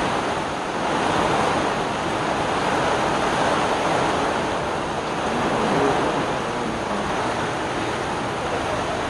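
Rain falling steadily on the kitchen roof, an even, unbroken rushing noise.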